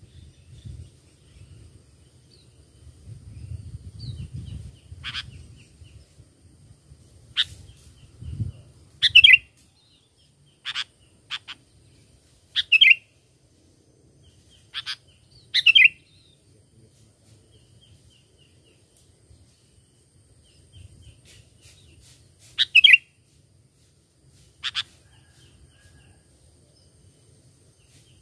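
Sooty-headed bulbul giving short, sharp call notes at irregular intervals a second or few apart, some single and some in quick pairs. A low rumble underlies the first third.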